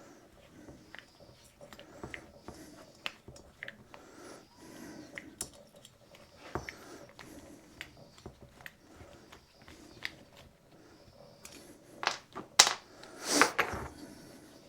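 Small clicks and taps of hand tools and metal engine parts being handled during chainsaw engine teardown, with a couple of louder knocks about twelve seconds in and a brief louder clatter just after.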